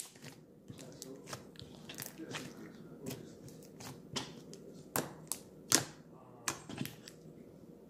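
Slime with jelly cubes mixed in being squeezed and kneaded by hand, giving irregular sticky clicks and pops. A few sharper pops come between about five and seven seconds in.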